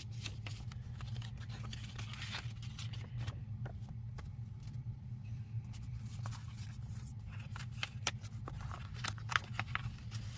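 Paper envelopes and sticker sheets being handled: rustling and crinkling with many small clicks and taps, busiest near the end, over a steady low hum.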